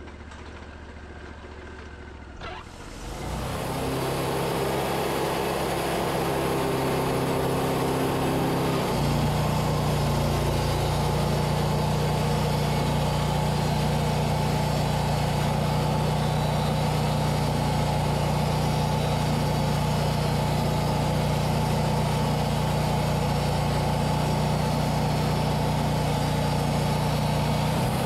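Portable bandsaw sawmill: the engine idles quietly, speeds up about three seconds in, and about nine seconds in its note drops and settles as the band blade enters the yellow birch cant. It then runs steadily under load while sawing off a 4/4 board.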